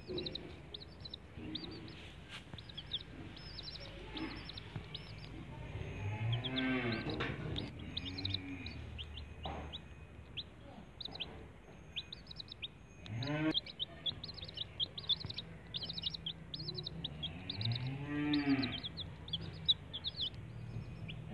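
Young chicks peeping continuously as they forage, many short high peeps that slide downward in pitch. A few long, low, arching calls from a larger animal stand out over them, about six to nine seconds in, again around thirteen seconds and around eighteen seconds.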